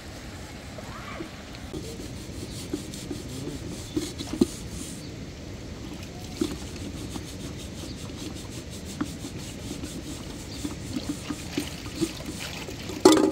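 A sponge scrubbing a wet metal teapot, with light knocks of the pot now and then and a louder knock near the end.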